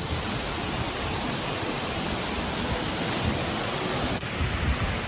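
Waterfall rushing: a steady, even roar of falling water, with a brief dip about four seconds in.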